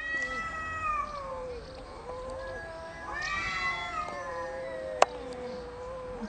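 Two male cats yowling at each other in a territorial standoff: long, drawn-out caterwauls that waver up and down in pitch and overlap, with a second voice rising in about three seconds in. A single sharp click about five seconds in.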